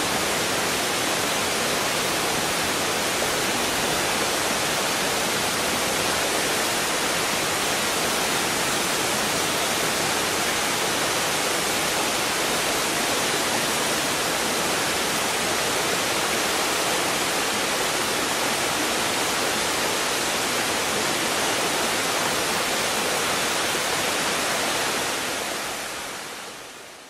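Steady rushing of a waterfall, an even hiss of falling water that fades out near the end.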